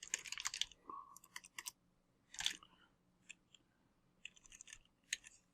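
Faint computer-keyboard typing: short runs of key clicks with gaps between them.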